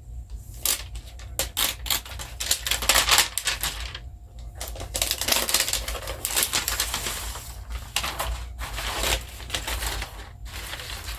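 Packaging rustling and crinkling in irregular bursts with small clicks, as a laptop is unwrapped and taken out of its box.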